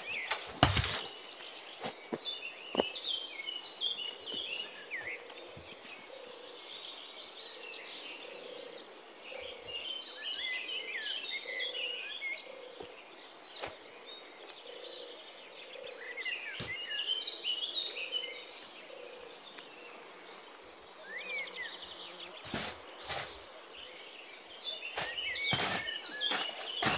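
Tropical woodland ambience: birds chirping in scattered bursts over a steady high insect whine, with a low call repeating about once a second through the middle. Footsteps and brushing through undergrowth are heard near the start and again near the end.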